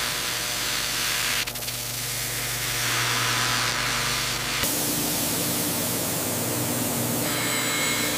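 Abrasive flap wheel grinding a pistol's metal, a steady rasping hiss over a low hum. About four and a half seconds in it changes to a CNC mill cutting steel under flowing coolant, a spray-like hiss with steady machine tones, and thin high-pitched tones join near the end.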